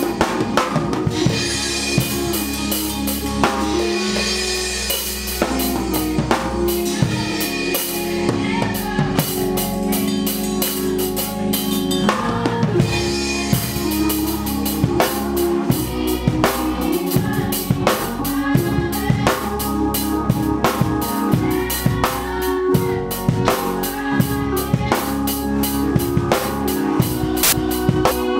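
Drum kit played live with sticks, a fast continuous pattern of kick, snare and cymbal hits, over other band instruments holding steady chords.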